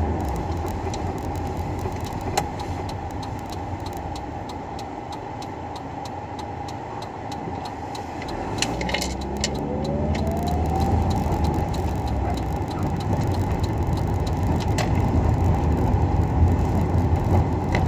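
Road noise inside a moving car's cabin: a steady low rumble of engine and tyres. A whine rises in pitch about nine seconds in as the car speeds up, and the car grows louder from then on. A few small knocks and rattles sound throughout.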